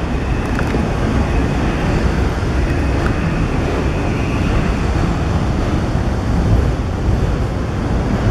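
Subway train running over the terminal's yard tracks: a steady low rumble with a faint high whine for a couple of seconds in the middle, mixed with wind noise on the microphone.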